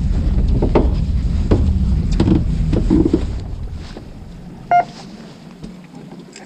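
Low rumble of wind and handling noise on the camera microphone, with scattered clicks and taps, easing off after about three and a half seconds. About five seconds in there is one short, high beep.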